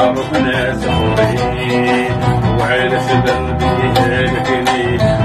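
Oud and electronic keyboard playing together, the oud plucked over a steady keyboard accompaniment, in a modern arrangement of an Algerian bedoui song.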